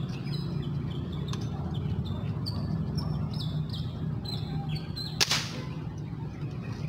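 Airgun fired once at a fish in the water: a single sharp crack about five seconds in. Birds chirp repeatedly before it, over a low steady hum.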